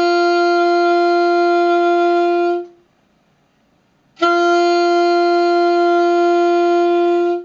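A saxophone mouthpiece and reed blown on the neck alone, without the body of the instrument: two long steady tones of one pitch, each about three seconds, each started sharply by the tongue leaving the reed tip with a 'ta'.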